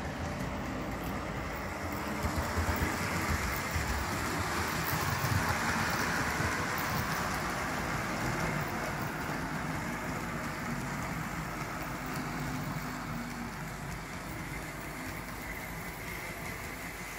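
OO-scale model diesel locomotive and coaches running along the layout's track, a steady noisy rolling and motor sound that is loudest about five or six seconds in and then slowly fades.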